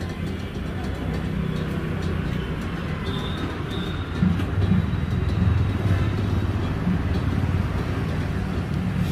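Steady low rumble of road traffic, growing a little louder about four seconds in.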